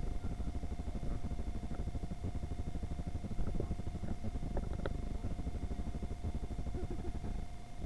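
Inclined moving walkway running under a rider: a steady low rumble with a constant faint hum, and a couple of light clicks about four and a half seconds in.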